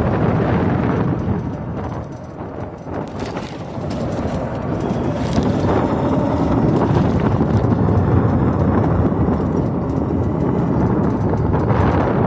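Electric ATV being ridden, a steady low rumbling noise of the machine and its tyres over rough ground, with a few faint knocks.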